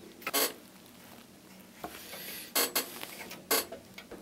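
Hand tools handled on a wooden workbench: a few sharp clicks and knocks as a steel caliper and a marker pen are put down and picked up against the steel jew's harp frame, with a faint squeak of the marker drawing on the steel.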